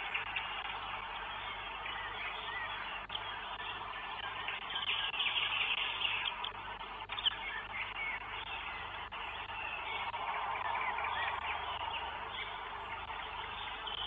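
Short bird chirps and calls over a steady hiss, with a louder stretch of calling about five seconds in and a single sharp tap near seven seconds.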